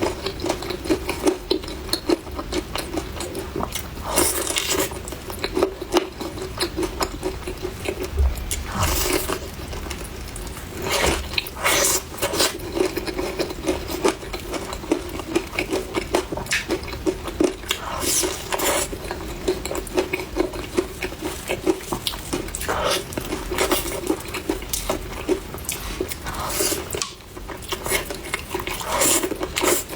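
Close-miked eating of fried chicken cutlet: cutlery clicking against a dish and short bursts of crunchy biting, repeated every few seconds, over a steady low hum.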